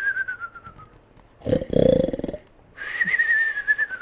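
A cartoon-style snore for the sleeping bear: a falling whistle on the out-breath, a short rasping snort on the in-breath about a second and a half in, then another falling whistle.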